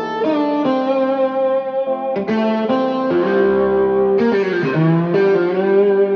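Electric guitar music with effects, sustained notes changing every half second or so, played back through a 1995 Mission 761i bookshelf loudspeaker.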